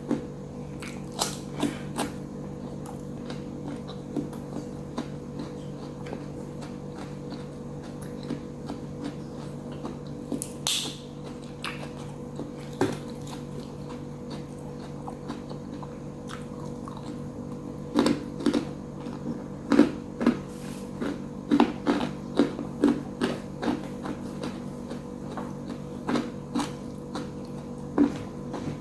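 Close-up eating sounds: chewing and biting into crunchy fried food, with sharp crisp crunches. They are scattered at first and come thick and fast in the second half, over a steady low hum.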